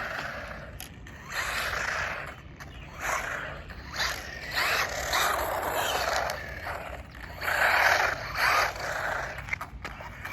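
Brushless 4WD 1:16-scale RC car being driven hard on its high-speed setting: repeated surges of motor whine and tyres scraping over the ground as it accelerates, turns and runs off again.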